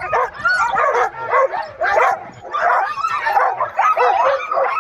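A team of harnessed sled huskies barking all at once, a continuous din of many overlapping high calls.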